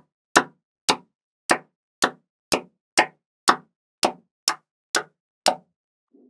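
Small magnet balls snapping onto one another one at a time: eleven sharp clicks at about two a second, with dead silence between them.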